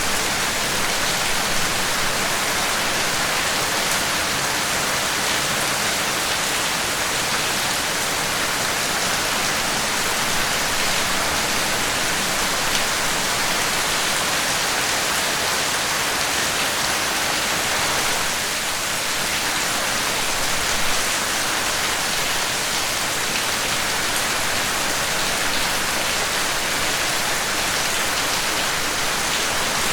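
Steady rainfall, a dense even hiss of rain with no letup.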